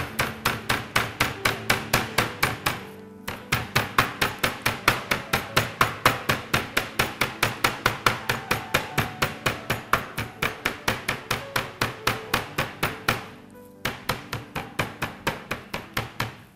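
Chicken being pounded flat with a wooden rolling pin through a plastic sheet on a cutting board: a steady run of blows, about four a second, with short breaks about three seconds in and near the end.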